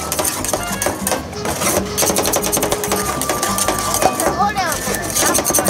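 Two metal spatulas rapidly chopping and scraping on a stainless-steel cold pan: a fast clatter of sharp taps as ice-cream mixture is chopped while it freezes. Voices chatter in the background.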